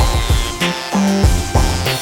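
Funky electronic beat played on an Akai MPC: drum hits over a bass line, with synth lines gliding down in pitch.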